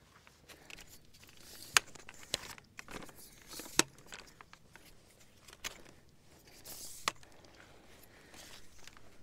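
Footsteps crunching through dry fallen leaves and grass, an irregular rustle and crackle with a few sharper snaps.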